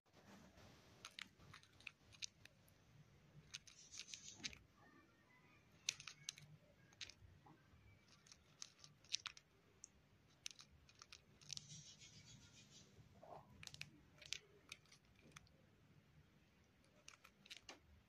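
Cockatiel grinding its beak: faint, irregular crunchy clicks, the sign of a relaxed, drowsy bird.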